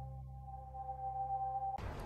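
Background music ending on a steady held chord that slowly fades. Near the end it cuts off abruptly into noisy outdoor sound.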